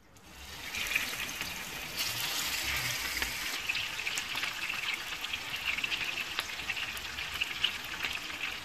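Hilsa fish steaks frying in hot oil in a pan: a steady sizzle with many small crackles and pops, growing over the first second.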